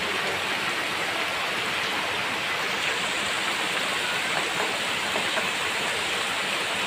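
Heavy rain falling steadily, a constant hiss, with rainwater running off across the muddy ground.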